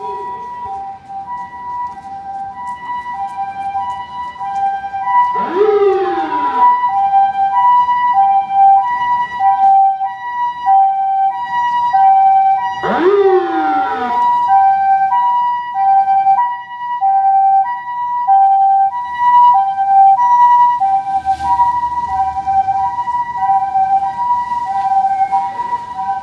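Japanese railway level-crossing warning bell ringing: an electronic two-tone alarm that switches back and forth between two pitches in an even, quick rhythm, signalling that a train is approaching. Twice, about seven seconds apart, a loud sound glides up and then down across it. A low rumble comes in near the end.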